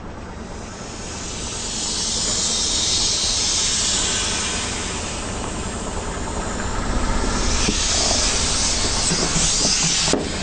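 Air hissing out of inflatable plastic toys squashed under a slowly rolling car tyre, in two long surges, with a few crackles just before the sound cuts off near the end.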